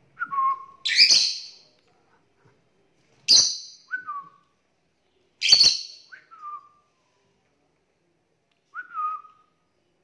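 Pet lutino peach-faced lovebird giving three loud, sharp, shrill calls, with softer short whistles falling in pitch between them.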